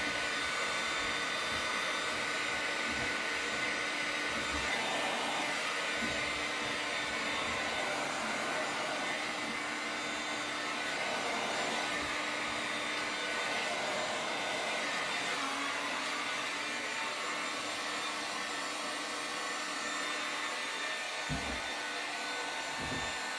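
Wet/dry shop vacuum running steadily, supplying the suction for vacuum-wrapping a part in film. A couple of faint low knocks near the end.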